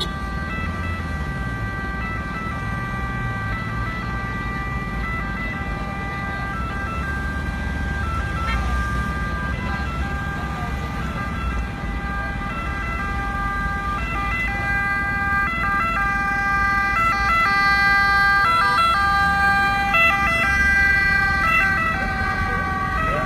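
Ambulance siren sounding continuously in a two-tone pattern, switching between steady pitches, over low city traffic rumble. It grows louder from about two-thirds of the way through.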